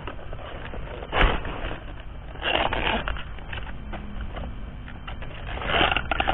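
Rustling and crunching of a fallen banana flower and wet banana leaves being handled, its bracts pulled back by hand. It comes in a few irregular bursts, the loudest about a second in and near the end.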